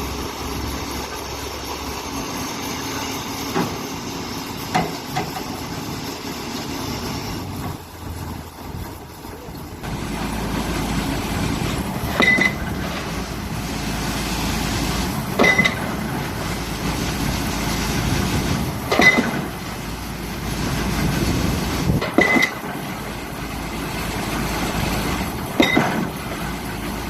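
Pile driving with heavy machinery: a sharp metallic blow about every three and a half seconds in the second half, each with a brief ringing, over a steady diesel engine drone.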